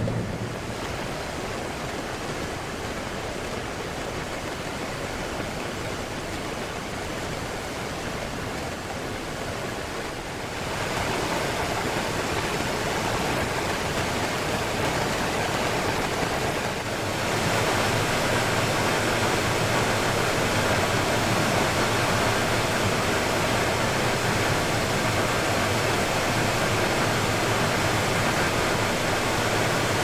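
Steady rushing, water-like noise of slurry being pumped in an industrial sump by a heavy-duty submersible slurry pump. It gets louder about ten seconds in and again about seventeen seconds in.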